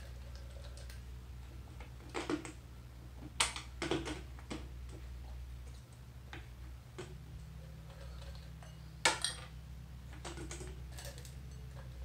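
Scattered light clicks and taps of hard candies being handled, picked out of a glass bowl and knocking against a plastic squeeze bottle, with a sharper clack about three and a half seconds in and again about nine seconds in, over a steady low hum.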